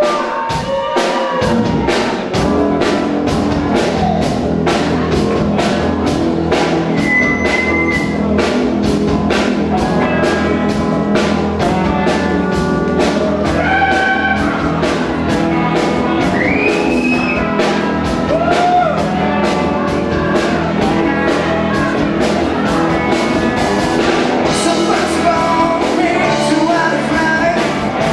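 Live rock band playing: two electric guitars, bass guitar and drum kit, with a steady drum beat.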